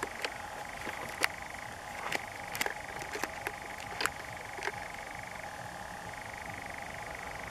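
European nightjar churring: a steady, unbroken mechanical trill that drops slightly in pitch about five and a half seconds in and rises again a second later. Sharp clicks and knocks of camera handling sound over it during the first few seconds.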